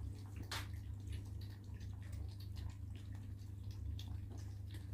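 Several British Shorthair kittens and an adult cat lapping milk from a shared dish together: a busy, irregular patter of many small wet laps, loud enough to sound like a waterfall.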